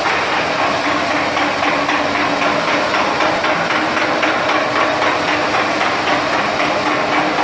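Banana chips frying production line running: a loud, steady machine din with rapid fine clatter and a steady hum.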